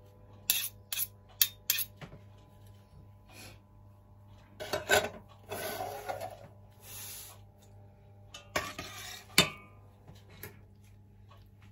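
Metal spoons clinking against a stainless steel pot, about five quick clinks in the first two seconds, then longer scraping noises about halfway through and again near the end, closing with one sharp clink. A faint low hum runs underneath.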